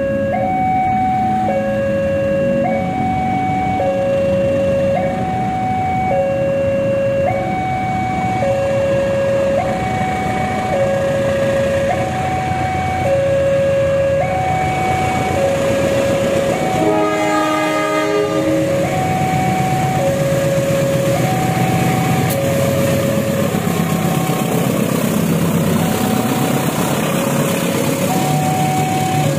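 Level-crossing warning alarm repeating a two-tone electronic signal, alternating a higher and a lower tone about once a second each. About seventeen seconds in, the CC201 diesel-electric locomotive sounds its horn once for about a second, and its engine rumble grows as it passes the crossing.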